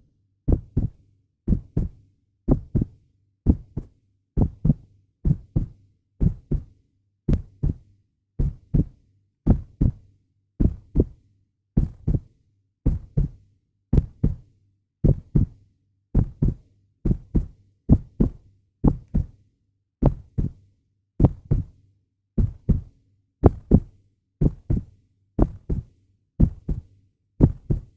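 Heartbeat sound effect: a steady lub-dub of paired low thumps, about one beat a second.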